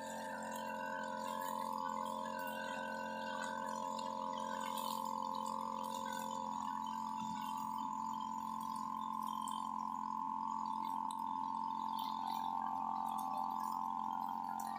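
UM328 two-stroke brush cutter running at high revs with a steady high-pitched whine, its 2.4 mm nylon line spinning through grass; a lower tone in the whine drops out about six seconds in.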